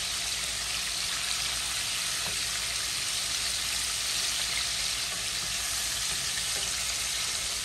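Flour-coated chicken tenders deep-frying in a pot of hot oil: a steady sizzle.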